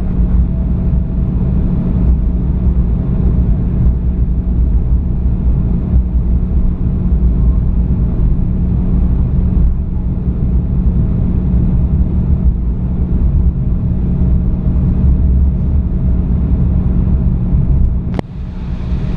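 Steady low rumble of a jet airliner's engines and airframe heard inside the cabin while it taxis after landing, with a faint steady hum over it. Near the end there is a brief click and a short drop in level.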